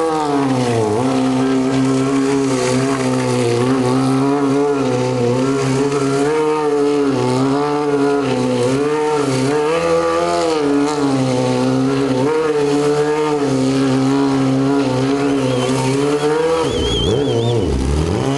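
Stunt motorcycle's engine held at high revs, the pitch rising and falling over and over as the rider spins the rear tyre in burnout circles. The revs drop away near the end.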